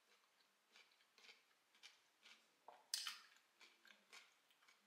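Faint chewing of raw cucumber, soft crunches about twice a second, one louder crunch about three seconds in.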